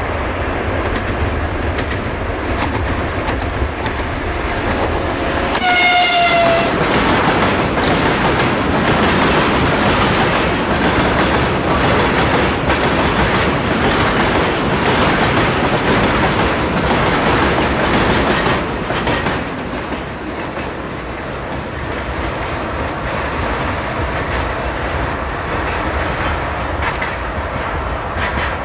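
2TE116 diesel locomotive hauling a freight train past at close range, its engine rumbling, with one short horn blast about six seconds in. The loaded freight wagons and tank cars then roll past, wheels clattering over the rail joints, a little quieter in the last third.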